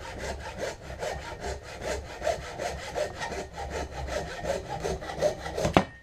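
Handsaw cutting through an antler clamped in a vise, in fast, steady back-and-forth strokes. The sawing stops with a sharp knock just before the end as the cut goes through and the crown comes off.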